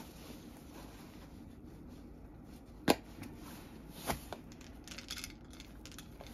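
Cat eating dry kibble from a wooden tray: a sharp crunch about three seconds in, another about a second later, then a quick run of small crisp clicks.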